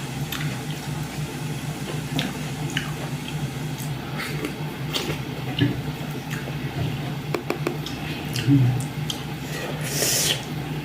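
Eating by hand: soft squelching of buckwheat dhido and curry and chewing, with scattered small clicks over a steady low hum, and a short hissy burst near the end.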